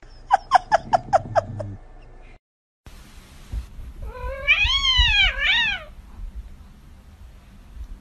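A cat makes a quick run of about seven short, falling chirps. Then, about four seconds in, a kitten gives one long meow that rises and falls in pitch, in two parts.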